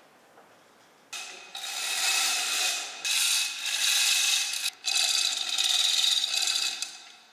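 Chain hoist ratcheting and rattling as it takes up the load on the lifting slings. It comes in three runs of a second or two each, with short breaks, and fades out near the end.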